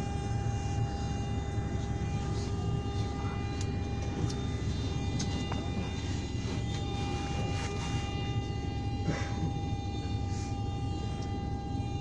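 Steady engine noise: a low rumble with several high, steady whining tones over it and a few light clicks.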